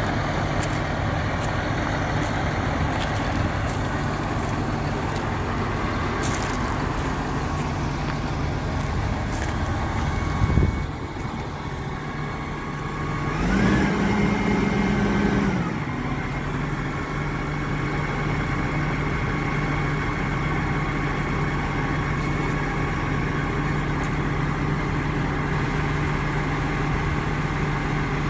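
A 2015 Claas Axion 920 tractor's six-cylinder diesel engine idling steadily. A short knock comes about ten seconds in. A few seconds later the engine speeds up for about two seconds, then settles back to idle.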